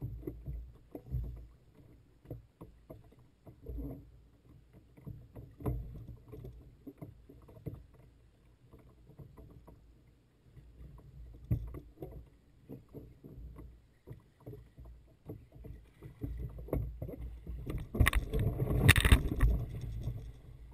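Water knocking and slapping against a fishing kayak's hull, with small scattered knocks over a low rumble. Near the end comes a louder stretch of splashing as the angler wades in the shallow water beside the kayak.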